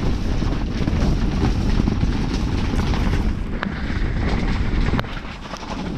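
Strong gusting wind buffeting a Väinö Bunker 3 ice-fishing tent: a dense low rumble with the fabric flapping and rattling, easing noticeably about five seconds in.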